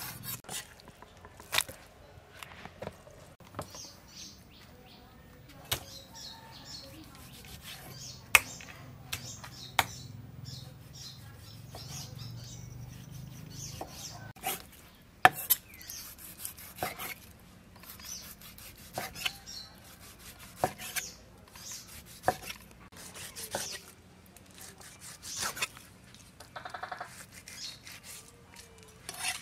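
Large kitchen knife slicing raw beef on a wooden chopping board, the blade knocking sharply against the board at irregular intervals. Birds chirp in the background.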